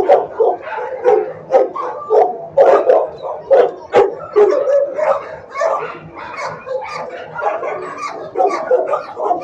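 Dogs in a shelter kennel barking over and over, a few barks a second, the barks overlapping.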